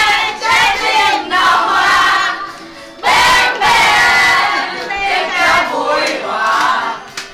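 A group of young men and women chanting and shouting together loudly, many voices at once, in long phrases with a short break about two and a half seconds in.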